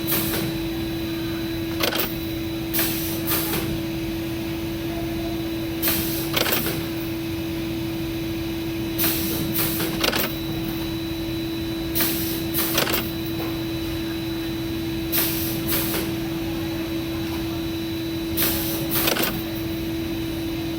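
Factory machinery running with a steady hum. Short hissing bursts, mostly in pairs, recur about every three seconds in a regular working cycle.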